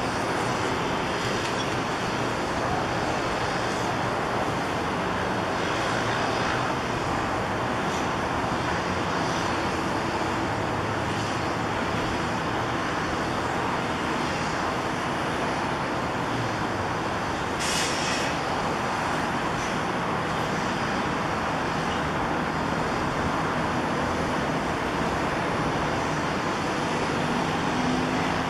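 Kobelco crawler excavator's diesel engine running steadily while it holds and positions a concrete pile, with one brief hiss a little past the middle.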